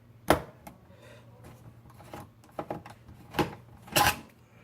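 Sharp clicks and small knocks of a screwdriver and tiny screws being handled while the bottom-case screws are taken out of a MacBook Pro laptop. The loudest click comes about a third of a second in, with a few more near the end.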